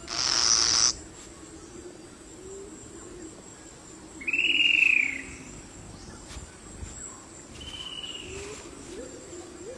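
Tropical forest ambience. In the first second there is a brief insect-like hiss, then a loud whistled bird call about four seconds in that rises and then falls. A fainter, similar call comes near the end.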